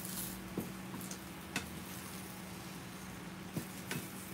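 Beaten egg frying quietly in a small stainless-steel pan, stirred with a wooden spatula, with a few light knocks of the spatula against the pan. A steady low hum sits underneath.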